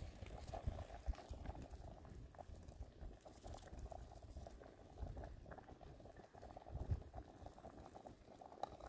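Faint bubbling and crackling of food cooking in a pot.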